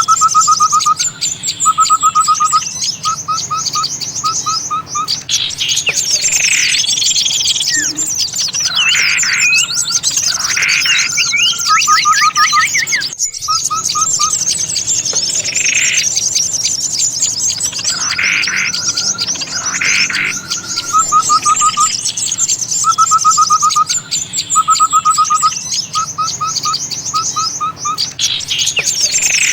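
Bird-lure recording of small songbirds in a loud, busy chorus: constant high twittering, with repeated short trains of rapid even whistled notes and louder sharp calls breaking in every few seconds.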